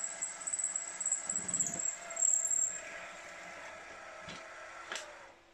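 Milling machine running with a drill in its spindle, boring through a metal part. A high whine stops about halfway through, two sharp clicks follow, and the running noise falls away just before the end.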